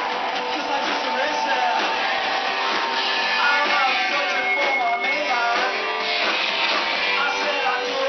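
Live rock-and-roll band playing, with strummed guitar and singing, loud and steady. It sounds thin with little bass, as through a small camera's microphone.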